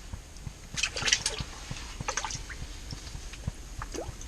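Small splashes and drips of water at an ice-fishing hole as a just-caught crappie is let go, in two short clusters about a second and two seconds in, over a low rumble of wind on the microphone.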